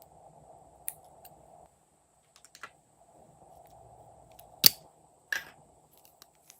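Glossy slime being handled, giving a few sharp clicking pops, the loudest about two thirds of the way in, over a faint steady hum.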